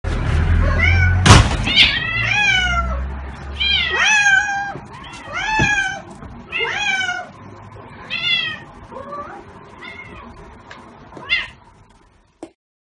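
Domestic cats meowing, a series of about nine short calls a little over a second apart that grow fainter toward the end. A sharp click about a second in.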